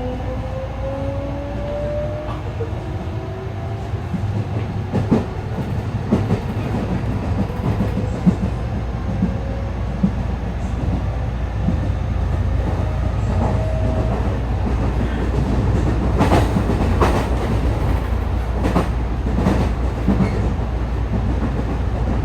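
JR West 207 series electric train accelerating, heard from inside the car: its inverter motor whine rises slowly in pitch as several parallel tones, an out-of-step sound because the inverters at the two ends of motor car KuMoHa 207-1037 are not in sync. After a few seconds it settles to a steady running rumble, with wheel clicks over rail joints and a short second rising whine about halfway through.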